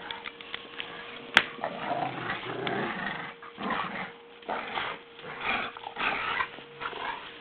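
Two dogs, a Staffordshire bull terrier and a Rottweiler, growling in play during a tug-of-war game, in repeated rough stretches. A single sharp click comes about a second and a half in.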